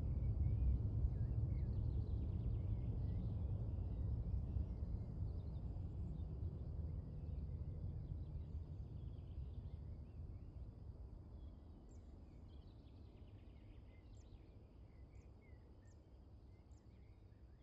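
Low rumble of a Boeing 737-800 jet's CFM56 turbofans dying away after the aircraft has passed overhead on its arrival, fading steadily until it is faint near the end. Small birds chirp throughout.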